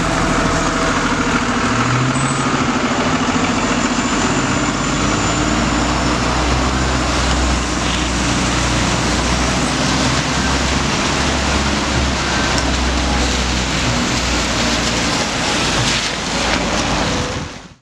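An Orion VII diesel-electric hybrid transit bus pulling away from a stop, its engine running with a steady low rumble, then giving way to general traffic noise on a wet city street.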